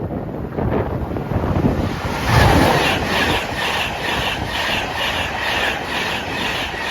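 Express passenger train passing at speed over a level crossing on a 125 mph main line, its wheels clattering over the rails in an even rhythm of about two to three beats a second after a louder surge about two seconds in.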